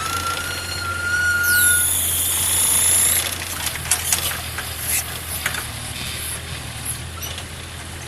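Mini excavator's engine running steadily with a low hum. In the first two seconds there is a high whistling tone and a shrill metallic squeal, then scattered irregular clanks and knocks.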